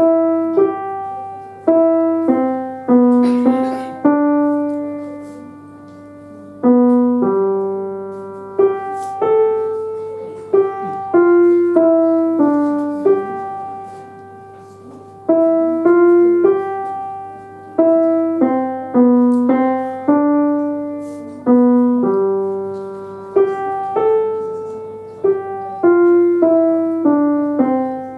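Essex grand piano played in a simple, moderately paced tune: single melody notes over a plain accompaniment, each note struck and left to ring and fade. A faint steady low hum lies underneath.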